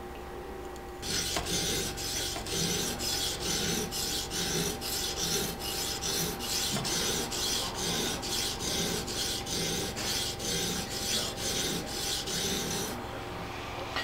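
An Edge Pro sharpening stone on its guide rod scraping back and forth along a poultry shear blade, about two to three strokes a second. It is grinding out the one dull spot left on the edge. The strokes begin about a second in and stop shortly before the end.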